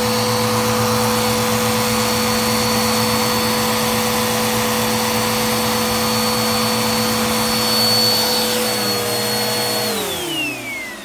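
Bissell upright vacuum cleaner running steadily at full power, then switched off near the end, its motor whine falling in pitch as it winds down.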